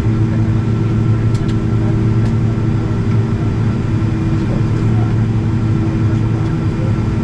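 Boeing 777-200ER jet engines running with a steady drone: a strong low hum carrying several steady tones, with a few faint clicks about a second and a half and two seconds in.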